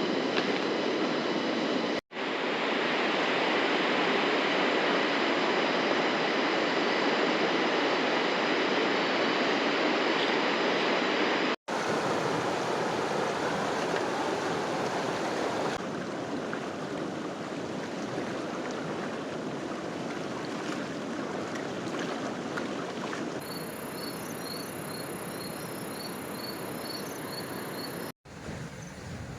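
Steady rushing of river water, heard in a few cut-together stretches. Near the end a faint run of high, evenly repeated chirps sounds over it.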